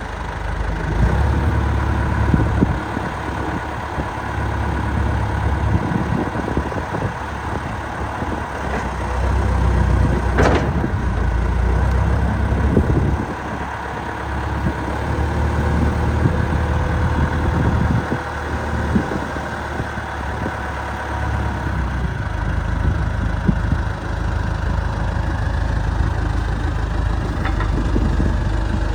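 1997 John Deere 310E backhoe loader's diesel engine running, its level swelling and easing a few times. A single sharp click sounds about ten seconds in.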